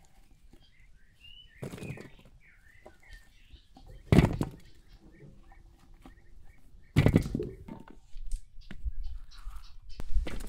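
Small birds chirping in short, quick notes, mostly in the first few seconds, broken by three sharp knocks, the loudest about four seconds in.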